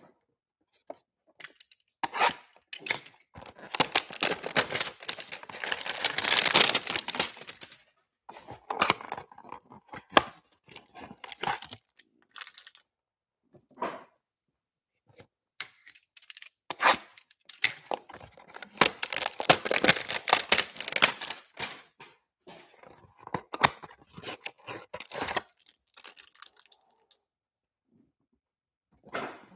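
Cardboard trading-card hanger boxes being cut and torn open by hand. The tearing comes in two long bouts, one a few seconds in and one about halfway through, with shorter tears between.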